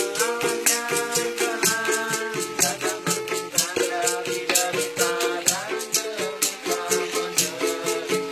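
Informal acoustic Orkes Melayu (dangdut-style) music: a small strummed guitar, a shaker rattling a fast steady beat of about four strokes a second, and a wavering sung melody.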